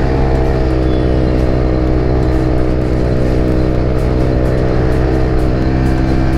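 TVS Ntorq 125 scooter's single-cylinder engine running through an aftermarket exhaust at a steady cruise of about 80 km/h, a drone that holds one pitch.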